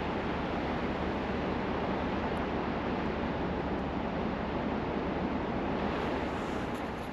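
Steady outdoor rushing of wind and water, with no distinct events, stopping abruptly at the end.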